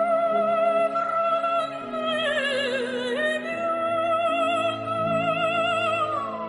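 Operatic music: a high voice holds a long note with wide vibrato over sustained orchestral chords. About two seconds in, the melody dips and wavers, then returns to the high note and slides down near the end.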